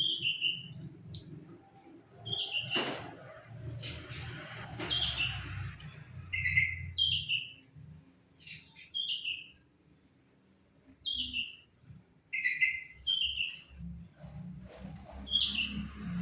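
Sigun birds giving short, slightly falling chirps, repeated every second or so. A sharp click or knock sounds about three seconds in.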